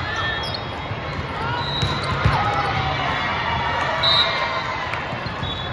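Basketball game in a gym: a ball bouncing on the court among voices on and around the court, with a short high-pitched tone about four seconds in.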